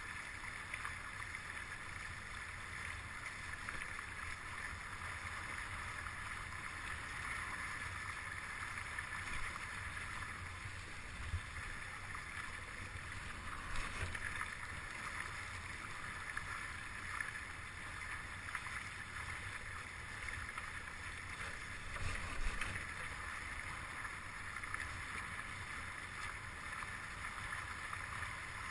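Water hissing and rushing along the hulls of a Stunt S9 catamaran under sail, over a low rumble of wind on the microphone. A few brief knocks stand out, about eleven seconds in, around fourteen seconds, and again about twenty-two seconds in.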